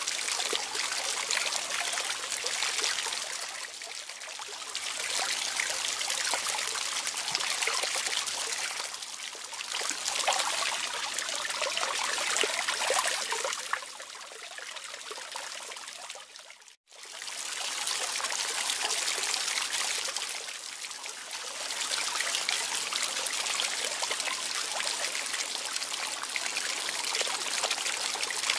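Water trickling and splashing steadily, swelling and easing every few seconds; the sound drops out for an instant about two-thirds of the way through, then resumes.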